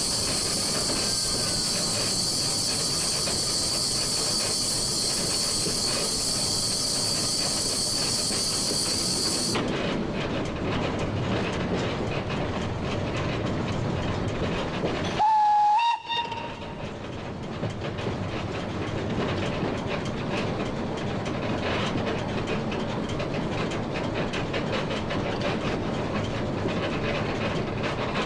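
1925 La Meuse steam locomotive running, with wheels clicking over rail joints. A steady high-pitched hiss cuts off suddenly about ten seconds in, and about halfway through the whistle gives one short blast, slightly rising in pitch, the loudest sound in the stretch.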